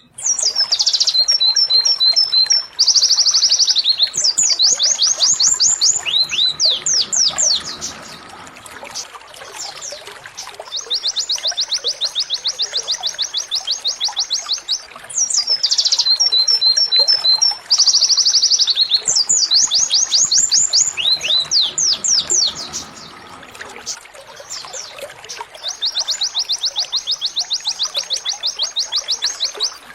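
Domestic canary singing a rapid-fire 'tembakan' song: fast rolling trills of high notes mixed with quick downward sweeps. The same phrase sequence repeats as a loop, starting over about every fifteen seconds.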